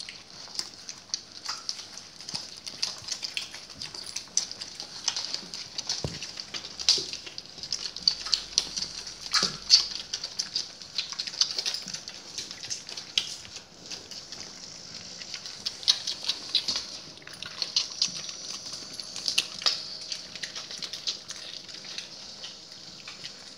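Dogs resting close by, making many irregular small clicks and smacks without a steady rhythm.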